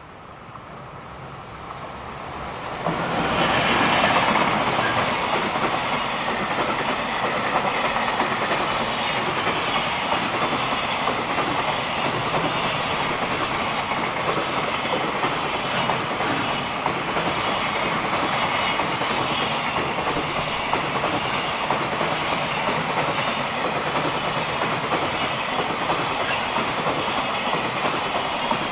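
Freight train passing close by. The rumble builds over the first few seconds and is loudest as the head of the train goes by. It then holds as a long, steady run of wagon wheels clacking over the rail joints.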